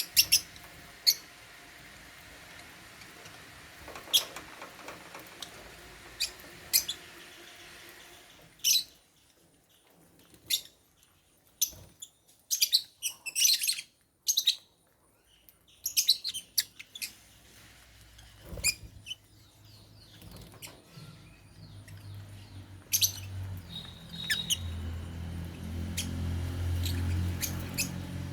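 African lovebirds chirping: short, sharp high calls, some single and some in quick clusters. A low steady hum comes in during the second half.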